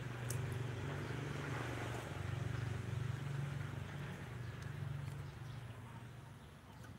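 Low steady hum of a running engine, fading away about six seconds in.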